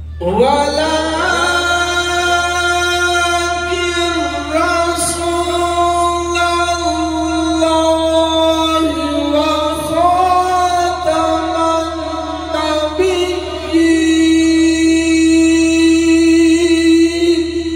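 A male qari reciting the Qur'an in melodic tajweed style through a microphone and loudspeaker. His voice rises at the start, then carries one long phrase of held, ornamented notes over a steady low hum.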